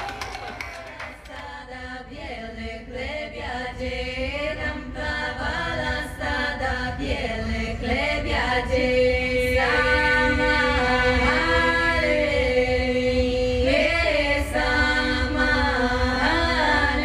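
Women's voices singing together in close harmony, chant-like, with long held notes over a steady low drone. The singing grows louder about halfway through.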